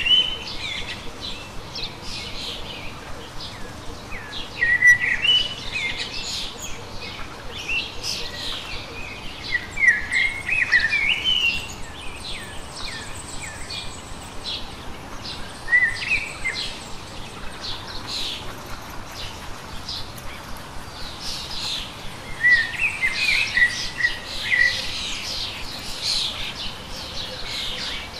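Birds chirping and singing: a steady scatter of short, high chirps, with bursts of rising and falling whistled phrases every few seconds.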